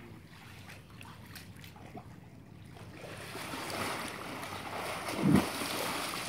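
Pool water splashing as a swimmer kicks and strokes freestyle, building up about halfway through, with one loud thump near the end.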